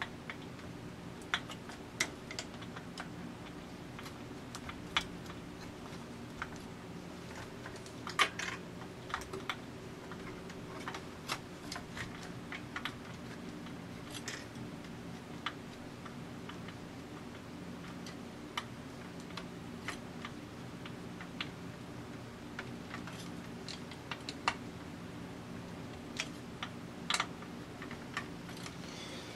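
Irregular small clicks and taps of a screwdriver working the mounting screws of a receiver's output transistors against the heatsink, over a steady low hum.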